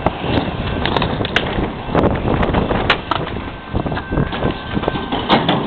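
Wind rushing over a phone's microphone and handling noise from the moving camera, with scattered sharp clicks and knocks.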